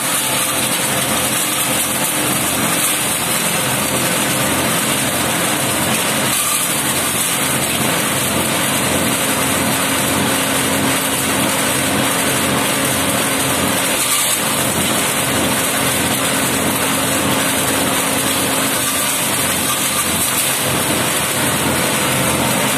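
Organic waste shredder driven by a small petrol engine, running steadily at a constant speed while leafy branches are fed into the hopper and chopped.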